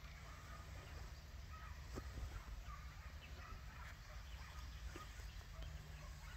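Faint, distant hunting hounds giving tongue: scattered short yelps and bays over a steady low rumble. Their voices signal the pack working a hare's scent.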